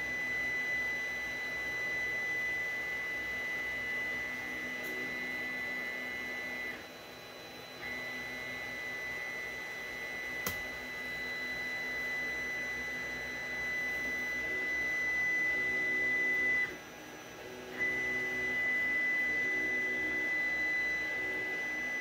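A steady high-pitched whine with a faint low hum beneath it, cutting out twice for about a second, and a single sharp click about halfway through.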